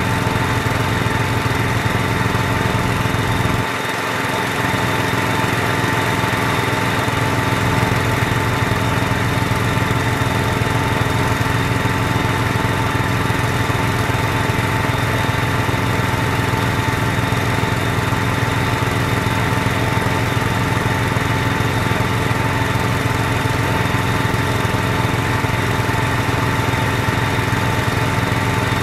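Small engine powering a homemade hydraulic well-drilling rig, running steadily while the rig drills through hard clay. It dips briefly about four seconds in, then carries on.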